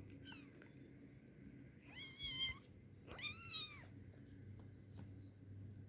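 Kitten meowing: two high-pitched meows about two and three seconds in, the second arching up and down, after a few short squeaky chirps near the start.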